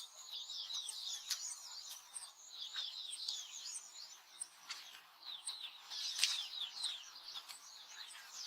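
Small birds twittering, with many quick high chirps overlapping throughout.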